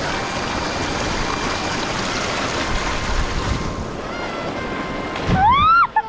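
Steady rush of water and wind, then a person jumping into the swimming hole with a splash near the end, followed by loud whoops that rise and fall in pitch.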